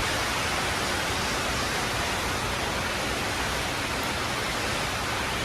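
Heavy rain pouring steadily, drops hitting the roof and the street.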